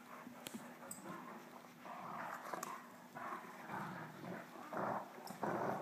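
Two Great Danes, an adult and a puppy, tugging on a rope toy: several short bursts of play growling and scuffling, with a few sharp clicks.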